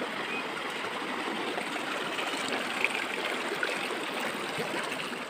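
Shallow stream water running and splashing around people wading in it, with water being poured out of a metal bucket into the stream near the end.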